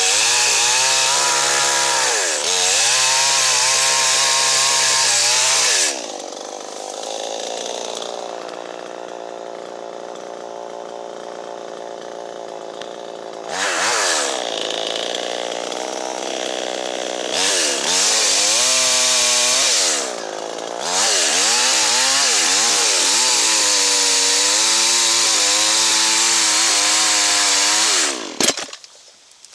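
Chainsaw running at full throttle while cutting wood, dropping back to idle about six seconds in for several seconds, then revving up and cutting again with a brief dip partway through. Near the end it drops off.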